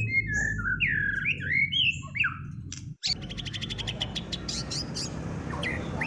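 Caged songbirds singing: rich whistled phrases with sliding notes, then, after a brief break about halfway, fast repeated chirps and trills.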